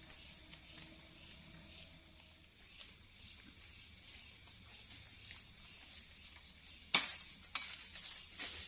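Faint steady high hiss of night-time forest ambience, broken near the end by three sharp snaps or knocks, the first the loudest.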